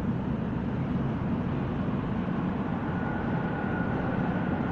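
Athens metro train heard approaching unseen through the tunnel: a steady low rumble filling the underground station, with a faint high whine coming in about three seconds in.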